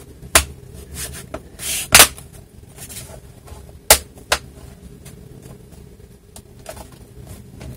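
The plastic bottom cover of a Lenovo Ideapad 330-17IKB laptop clicking into place as it is pressed down around its edge. There are a few sharp clicks: the loudest about two seconds in, then two close together about four seconds in, with fainter ones after.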